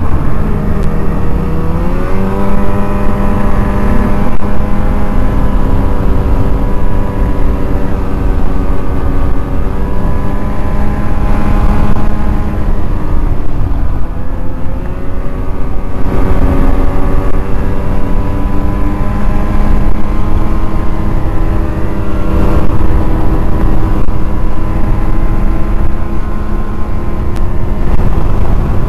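Snowmobile engine running at trail speed, loud and steady over a low rumble. Its pitch rises about two seconds in, dips briefly a little past the middle, then climbs again.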